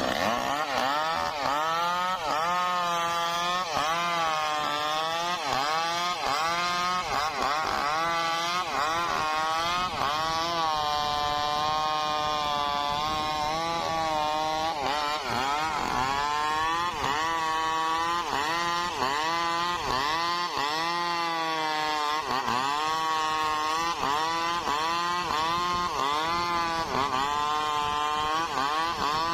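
Stihl MS 382 two-stroke chainsaw cutting through a trembesi (rain tree) log, its engine pitch dipping under load in the cut and rising again every second or two.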